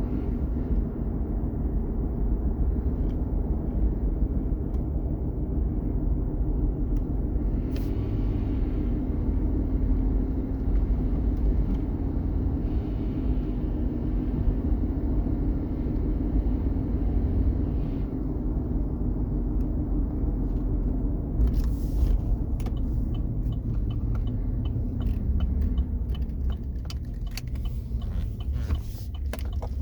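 2016 Chevy Silverado pickup running with a steady low rumble and a drifting whine underneath it: the undercarriage whine being checked. Near the end, a run of sharp clicks joins in.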